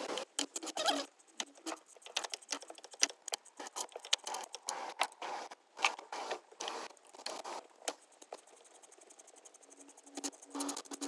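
Irregular metallic clicks, taps and short rattles of hand tools and parts being handled while parts are taken off a car engine.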